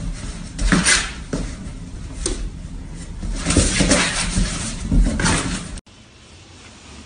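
A puppy scrabbling at and climbing into a cardboard box: repeated knocks and scrapes on the cardboard, which cut off suddenly about a second before the end.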